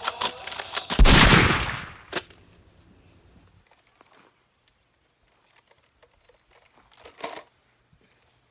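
A quick run of sharp shots, then one loud bang about a second in that dies away over about a second, and a single crack shortly after; later, one brief noise.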